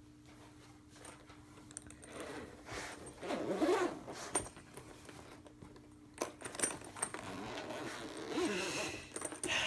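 Zipper on a clarinet case's fabric cover being pulled open, a rasping run about two seconds in and another in the second half, with a few clicks of handling between them.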